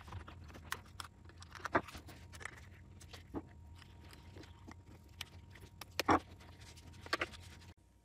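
Faint, scattered clicks, taps and rustles of hands handling a doorbell, its wiring and a screwdriver on a felt mat, sped up as a time lapse so the small noises come in quick succession. A few sharper clicks stand out, and the sound cuts off shortly before the end.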